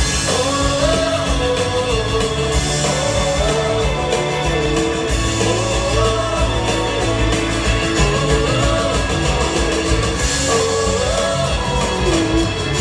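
Live rock band playing through a concert PA, heard from the crowd: a voice singing a melody over guitars, bass and drums.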